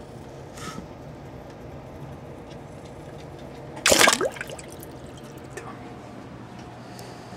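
Common snapping turtle splashing in its tank water: one short, loud splash about four seconds in, over a steady low hum.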